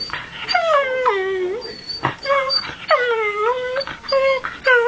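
Dog making drawn-out, wavering howl-whines, about five calls in a row, each dipping in pitch and sliding back up.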